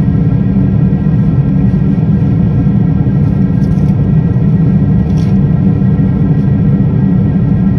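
Airliner cabin noise in flight, heard from a window seat: a steady, loud rumble of jet engines and airflow with a few faint steady whining tones above it. Two brief faint ticks come about three and a half and five seconds in.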